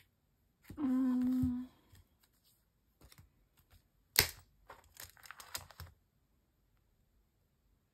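A brief hummed note about a second in. Then, a little past the middle, a sharp tap and the crinkling of clear plastic photocard sleeves as a binder page is turned.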